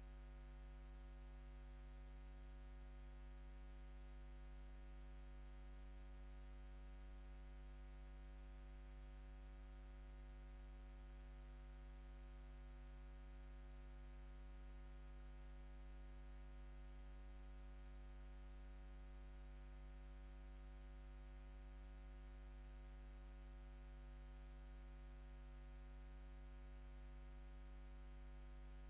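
Near silence: a faint, steady electrical hum with a thin high whine, unchanging throughout.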